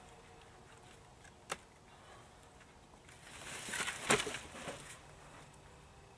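Dry brush and wood being handled in a pile: a single sharp click, then a couple of seconds of rustling and crackling that peaks in a sharp crack about four seconds in.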